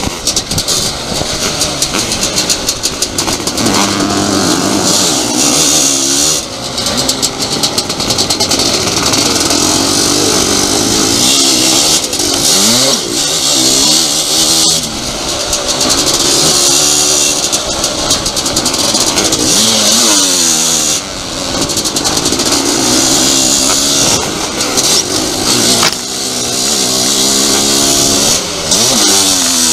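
Onboard motocross motorcycle engine at race pace, its pitch rising and falling again and again as the rider revs, shifts and rolls off into turns, with a rushing hiss in stretches.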